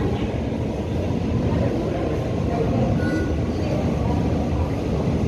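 Passenger train rolling past, a steady rumble of its wheels on the rails.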